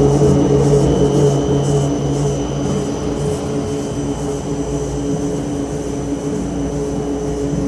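2016 Empire AR 300 three-bag spiral mixer running: a steady motor hum with several constant tones, easing slightly in level about two seconds in.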